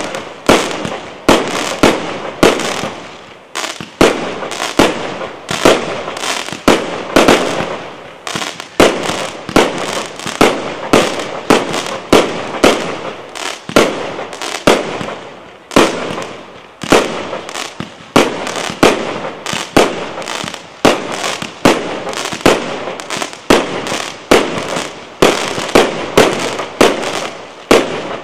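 Aerial firework shells bursting in a rapid, continuous barrage: sharp bangs come about two a second without a break.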